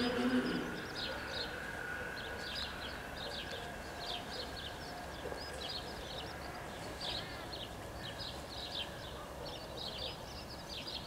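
The level crossing's warning bells ring a steady tone that stops about half a second in. Then small birds chirp repeatedly over a quiet outdoor background.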